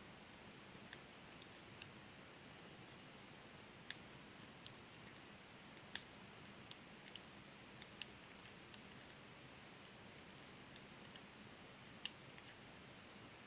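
Faint, irregular clicking of knitting needles tapping together as stitches are worked by hand in a purl row, over quiet room hiss.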